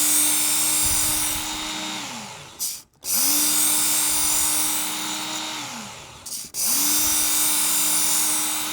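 Work Sharp Ken Onion electric belt knife sharpener running with a coarse belt as a chef's knife is drawn through it, the belt grinding the steel with a high hiss over the motor's steady hum. The motor winds down and is started again twice, about three seconds apart, giving three short grinding passes on the blade's second side.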